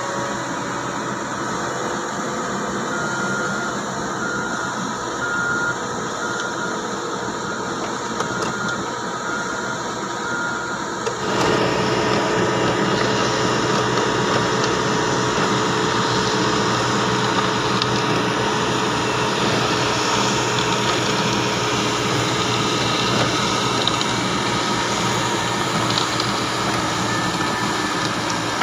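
Diesel engine of a Fiori DB 460 self-loading concrete mixer running steadily while it works, with a faint short beep repeating a little more than once a second for several seconds. About eleven seconds in, the engine sound steps up louder.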